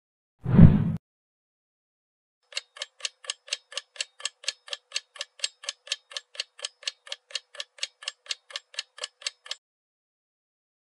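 A short, loud, deep thump about half a second in, then a clock-like ticking sound effect, about four even ticks a second, that stops suddenly near the end. The ticking marks time passing as the animated forehead wound heals.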